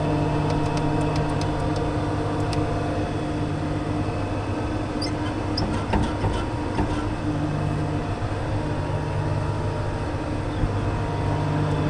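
Swather engine running steadily with a constant, even hum. A few light clicks and taps sound over it in the first couple of seconds and again about six seconds in.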